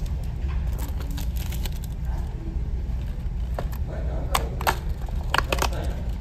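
Fingers tearing open the perforated tab of a small cardboard ice cream box, with paper crackling and a few sharp cracks of the card giving way in the second half. Under it runs the steady low hum of the ferry's engines.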